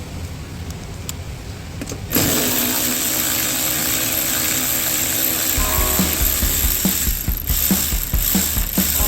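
A ratchet-type tool working. A loud mechanical whirring starts about two seconds in, then gives way to a steady run of clicks, about three a second, in the second half.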